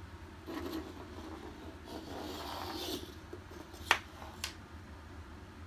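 Scraping and rustling from a cat playing with a Mousr robotic toy mouse: a short scrape, a second or so of scraping, then two sharp clicks about half a second apart.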